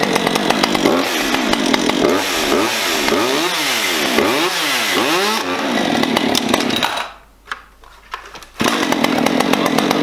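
Husqvarna 550 XP Mark II two-stroke chainsaw running on its first run, its engine note wavering up and down. Near the end the sound falls away for about a second and a half, then comes back suddenly.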